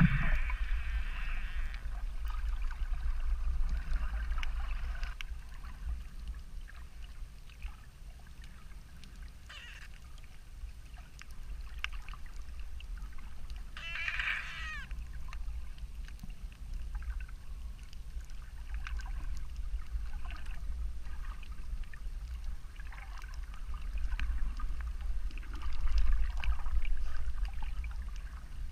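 Underwater water sound: a steady low rumble of moving water with scattered faint clicks and crackles, and a short bubbly gurgle about halfway through.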